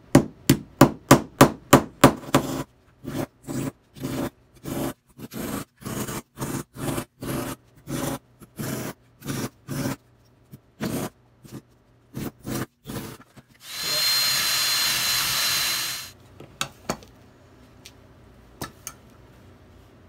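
Small hammer tapping small nails to fix thin wooden strips onto a wooden bird-feeder lid. It strikes quickly at first, about four blows a second, then more slowly. Late on, a steady two-second noise with a thin whistle, after which only a few faint ticks follow.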